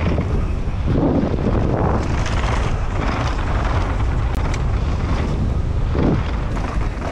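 Wind buffeting the microphone of a POV camera on a mountain bike descending a downhill trail, over a steady rumble of tyres rolling on dirt, with a few knocks and rattles from the bike over bumps.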